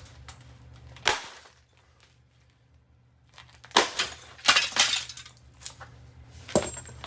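Hard blows smashing a Harbor Breeze ceiling fan apart, with breaking and clattering of loose parts: one hit about a second in, a quick run of strikes after a short lull, and another hit near the end.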